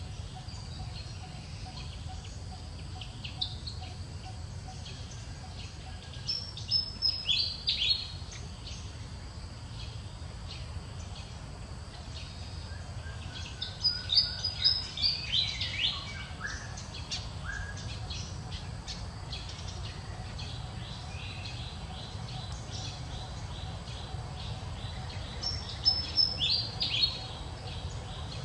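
A songbird singing the same short phrase of quick falling notes three times, spaced several seconds apart, over a steady low background rumble.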